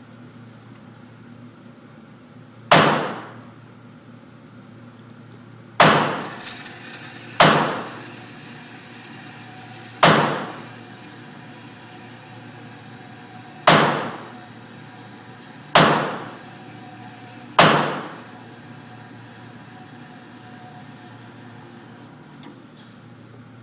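Henry rifle fired seven times at uneven intervals, each shot a sharp crack that rings out and fades over about a second.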